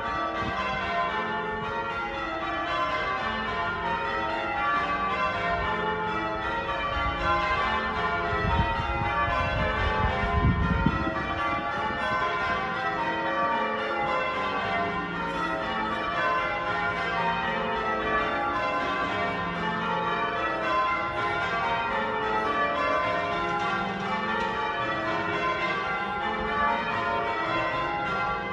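Wakefield Cathedral's tower bells ringing changes: a ring of bells struck one after another in quick, continuous rows running down the scale. A low rumble comes in about eight seconds in and lasts some three seconds.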